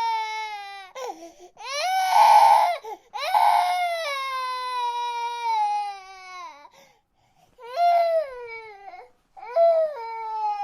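Infant crying in a string of long wails, each sliding down in pitch, with short breaths between them. The loudest cry comes about two seconds in, and the cries grow shorter and quieter toward the end.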